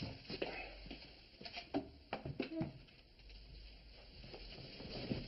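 A few light knocks and bumps of a chair being handled and set back in place, mostly in the first two and a half seconds, then quieter.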